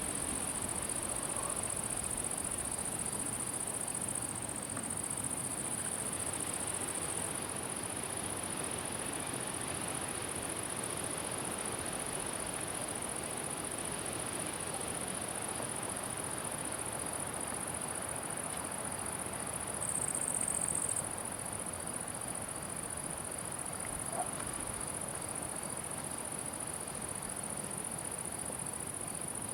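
Summer meadow insects, crickets or bush-crickets, stridulating in a steady high-pitched buzz that swells louder for about a second around two-thirds of the way through, over a faint even background hiss.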